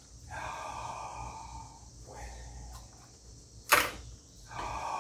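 Washing dishes by hand in a sink: one sharp clack about three-quarters of the way through, over a steady hiss, with a few drawn-out pitched sounds before and after it.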